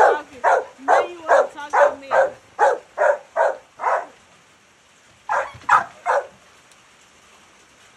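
American pit bull terrier barking in a quick, steady series, about ten barks in four seconds, then after a short pause three more barks.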